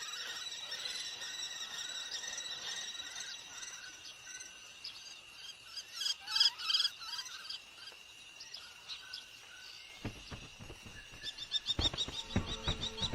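Small bird chirping: a cluster of chirps about six seconds in, then a quick run of short repeated chirps near the end, over a steady high-pitched drone.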